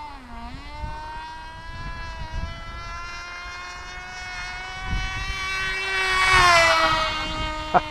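Cox RR1 .049 rear rotary induction glow engine on a Sharkface model plane in flight, a high buzzing whine whose pitch dips briefly near the start, then grows louder as the plane passes close about six seconds in and falls in pitch as it moves away. The engine is running a little rich.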